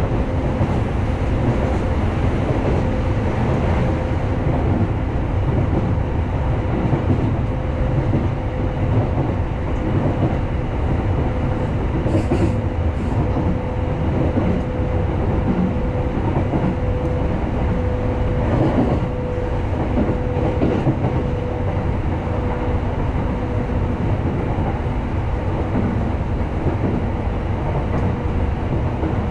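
Running noise heard from inside a moving electric commuter train: a steady low rumble of wheels on rail, with a constant humming tone over it.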